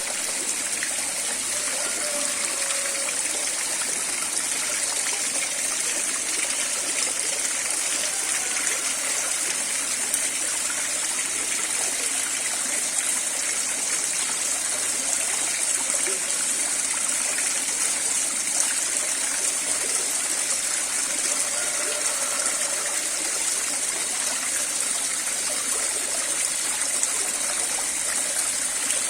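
Water falling steadily down a man-made cement cliff-relief waterfall, a constant even splashing rush with no breaks.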